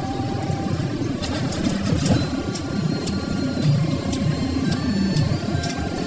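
SANY hydraulic excavator's diesel engine running steadily under load, with scattered sharp clicks and clanks over it.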